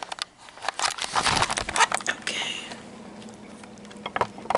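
Handling noise from a camera being set up and positioned by hand: a run of close clicks, knocks and rubbing, densest in the first two seconds, a brief hiss, then a few more clicks near the end.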